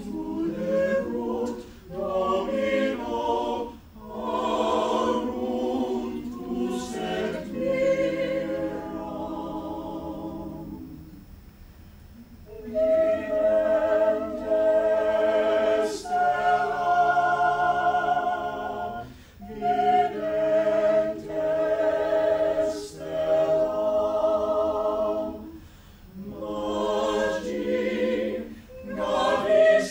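A small mixed-voice chamber choir singing a cappella: phrases of sustained chords that die away about ten seconds in, then a louder passage with a held high line, with short breaths between phrases.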